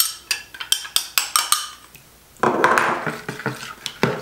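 A metal spoon clinking and scraping rapidly against a small glass bowl as thick sour cream is scraped out. From about two and a half seconds in, the spoon is stirring liquid batter in a plastic mixing bowl, scraping and knocking against its sides.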